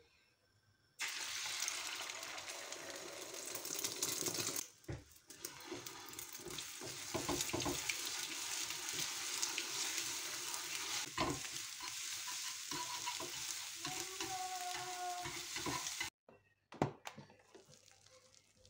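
Beaten eggs sizzling in a hot rectangular egg pan on a gas burner. The sizzle starts suddenly about a second in as the eggs hit the pan, dips briefly, then carries on while the eggs are stirred, with clicks of the utensil against the pan. It cuts off abruptly near the end, followed by a single click.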